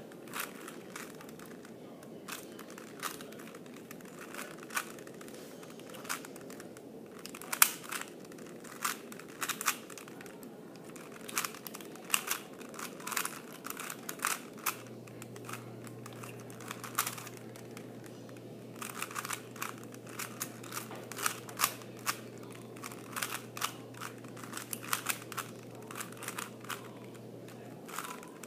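3x3 Rubik's Cube being turned by hand during a solve: quick, irregular runs of plastic clicks and clacks as the layers are twisted, with short pauses between runs.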